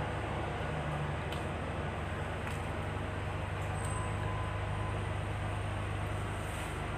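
Steady low hum and hiss of background noise, with a few faint clicks.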